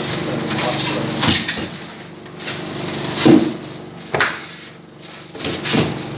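Home oxygen concentrator's compressor running with a steady hum, which grows fainter after about two seconds. Four sharp knocks or clicks sound over it, spaced a second or two apart.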